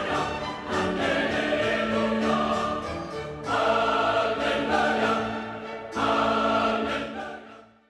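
Choral music with orchestral backing, a choir singing in full phrases with fresh loud entries twice, fading out at the end.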